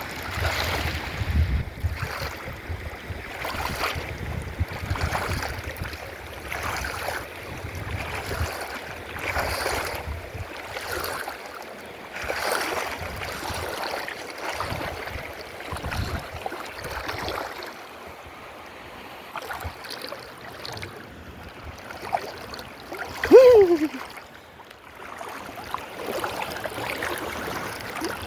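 New River water rushing, with soft footsteps on rocky ground about once a second for much of the time. Near the end comes a short tone gliding downward, the loudest moment.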